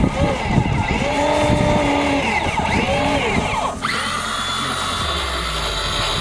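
Small electric motors of a homemade model excavator whining, their pitch rising and falling in repeated sweeps as the machine moves. About four seconds in this changes to a steadier, higher whine.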